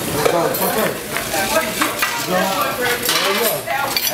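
Diner noise: food sizzling on a flat-top griddle, with dishes and cutlery clattering throughout.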